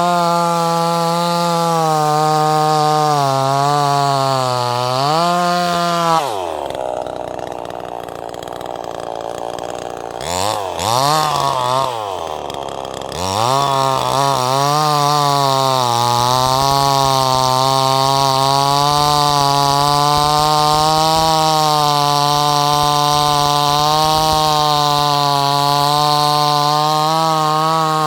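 Two-stroke chainsaw running at full throttle, likely cutting wood. About six seconds in it drops to a low idle and is blipped up twice. It then runs steadily at high speed again for the rest of the time.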